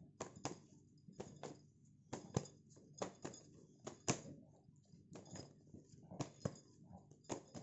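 Tarot cards being handled and laid out: about twenty light ticks and taps at an uneven pace, the loudest about four seconds in.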